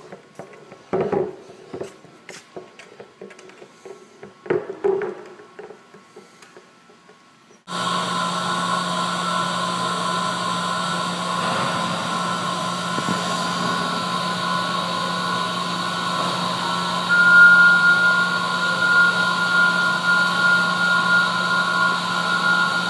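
A few light knocks, then a steady machine hum with several fixed tones that starts abruptly about eight seconds in; one high tone in it grows louder about seventeen seconds in.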